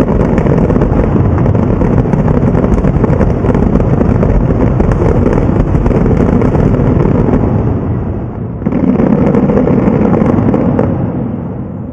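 Fireworks bursting in a rapid, continuous barrage: dense crackling over a low rumble. It starts abruptly, dips for a moment about eight and a half seconds in, picks up again, then fades near the end.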